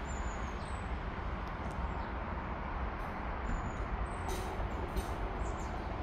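A steady outdoor rumble and hiss, uneven at the low end, with a few faint, short, high bird chirps. Two short clicks come about four and five seconds in.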